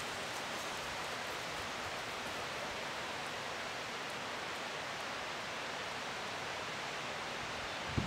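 Steady, even hiss of a breeze moving through the trees and grass, with no other sound standing out.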